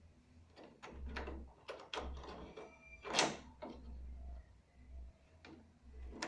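A key turning in a door lock: a run of metallic clicks and scrapes, with the loudest clunk about three seconds in. Two lighter clicks follow near the end.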